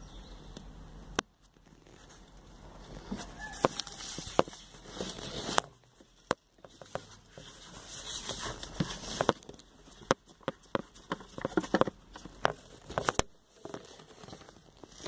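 Irregular sharp clicks and taps with bursts of rustling: handling noise among the engine-bay parts, with no engine running.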